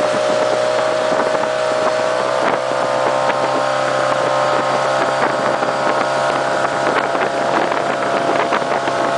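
Tow boat's engine running steadily at speed, a constant drone, over rushing water and wind on the microphone.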